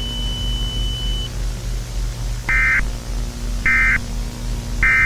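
Emergency Alert System end-of-message tones: three short, buzzy digital data bursts about a second apart, marking the end of the alert. They play over a steady low hum and hiss, and a steady high tone stops about a second in.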